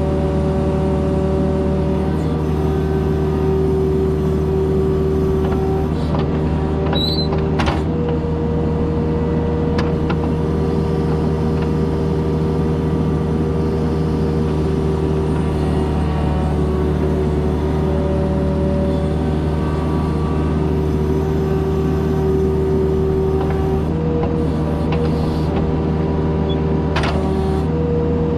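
Kubota mini excavator's diesel engine running steadily while it digs, with a whine that steps up and down in pitch several times as the hydraulics work. There are a few sharp knocks, the clearest about a quarter of the way in.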